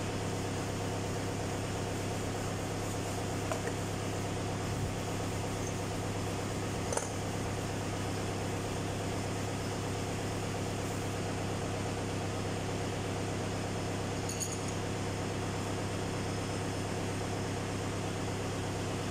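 Steady low mechanical hum of machinery running in the workshop, with a few light metallic clicks and knocks from gloved hands and tools working at the engine's timing gears.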